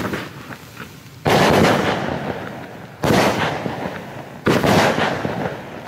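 A 16-shot, 20 mm fireworks battery (cake) firing shots in turn, about one every one and a half seconds. Each is a sudden loud bang that trails off over a second or so.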